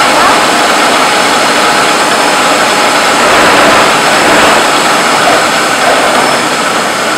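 Conventional milling machine running steadily and loud, its spindle turning a friction stir processing tool in an aluminium 5083 plate.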